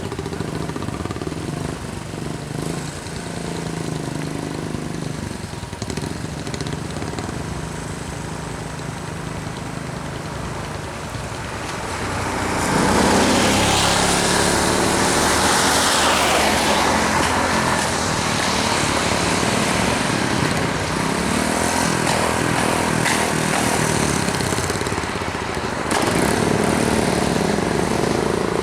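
Motor vehicle engines running on a road; about twelve seconds in a louder vehicle comes close and the sound grows fuller and stays loud.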